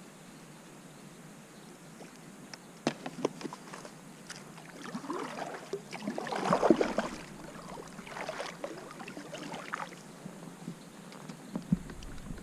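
Kayak paddle strokes swishing and splashing through calm water, loudest about halfway through, after a few sharp knocks about three seconds in.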